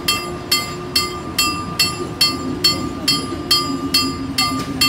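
Railway crossing warning bell ringing in a steady rhythm, about two and a half strikes a second. Under it, a passenger train's coaches pass through the crossing with a steady rumble.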